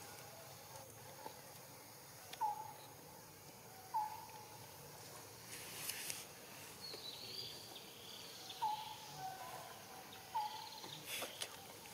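Forest ambience with a handful of short chirping calls a few seconds apart, and brief rustles about halfway through and near the end.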